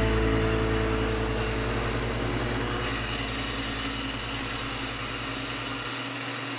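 Wood lathe running while a Vega copier's cutter shapes the spinning spindle blank: a steady motor hum under an even hiss of cutting.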